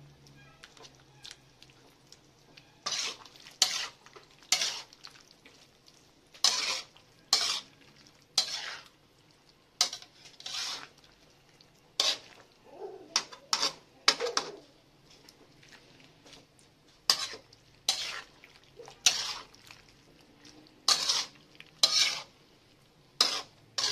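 Slotted metal spatula scraping and stirring a thick pork-and-vegetable stew in a large metal pan: short separate scrapes, roughly one a second, some in quick pairs.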